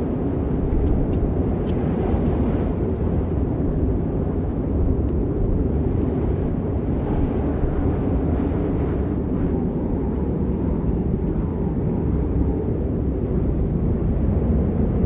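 Steady low rumble of storm wind, with a few faint sharp ticks scattered through the first half.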